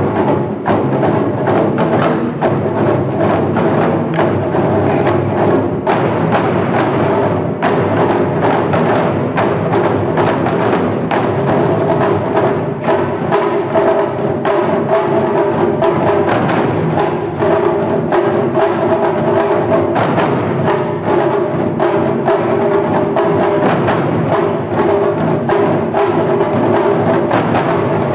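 Japanese taiko drum ensemble playing: a dense, continuous stream of rapid drum strokes without a pause.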